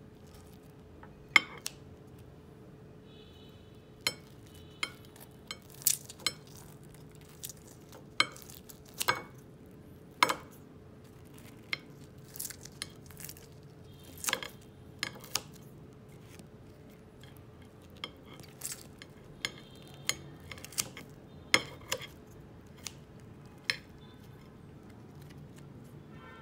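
Kitchen scissors and chopsticks clicking and tapping against a porcelain plate while fish cakes are cut apart: irregular sharp clicks, a few followed by a brief ring.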